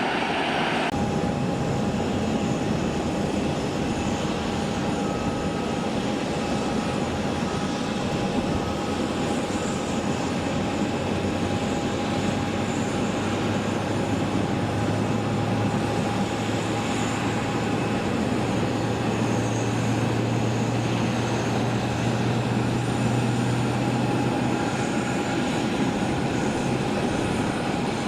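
Jet airliner engines running steadily, a dense noise with a steady whine over it and a low drone that grows stronger partway through.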